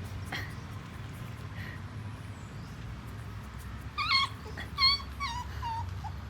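A puppy whimpering: a few short high-pitched cries, the loudest about four and five seconds in, with a fainter one at the start.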